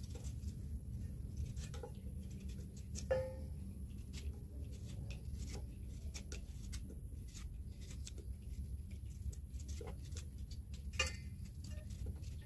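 Knife cutting a fresh bamboo shoot by hand, with small irregular clicks of the blade going through, over a low steady background hum. A slightly louder short sound about three seconds in, and again near the end.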